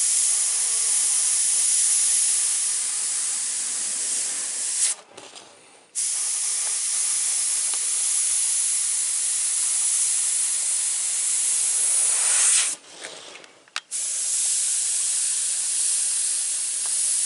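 Airbrush spraying white paint, a steady hiss of air and paint held in long passes, cut off briefly twice: about five seconds in and again near the thirteen-second mark.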